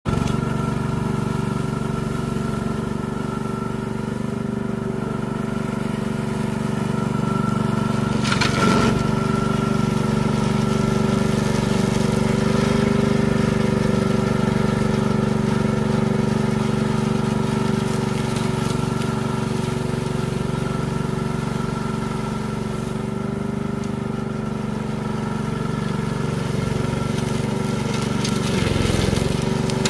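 Brush cutter running steadily at a constant pitch, with a brief burst of noise about a third of the way in and a short dip in pitch near the end.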